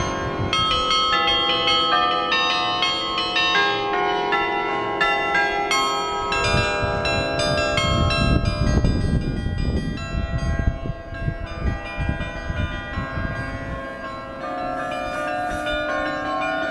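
Nieuwe Kerk tower bells ringing close at hand, many struck bell tones of different pitches overlapping and ringing on. A low, uneven rumble joins in from about six seconds in and fades out about five seconds later.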